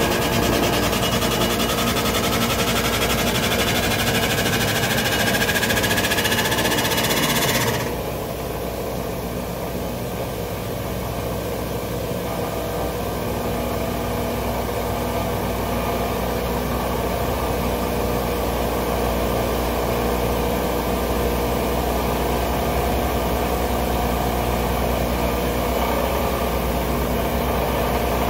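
An on-car spin balancer's electric motor and drive wheel run against a bus's front tire, the whir rising in pitch as the wheel speeds up, then cutting off suddenly about eight seconds in. The freed wheel spins on with a steady mechanical hum that slowly grows louder. The wheel is being spun to check for wobble after being centered on its hub with centering lug nuts.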